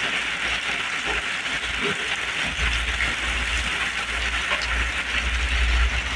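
Heavy rain pouring steadily, a dense even hiss of drops with faint scattered ticks, and a low rumble underneath that grows stronger about halfway through.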